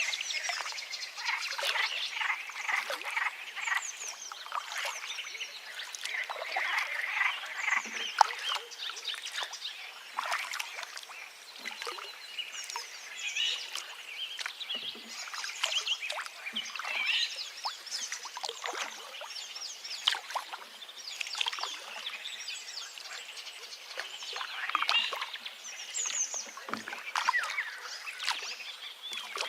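Forest river ambience: running water with many birds chirping and calling over it in a dense, unbroken chorus.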